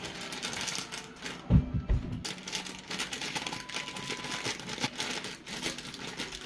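A plastic bag of cake mix crinkling as it is handled and cut open with scissors, with many small snips and clicks. Two dull low thumps about one and a half seconds in are the loudest sounds.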